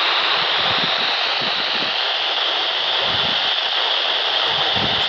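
Handheld ham radio hissing with static, a steady rushing noise from a weak, barely received signal.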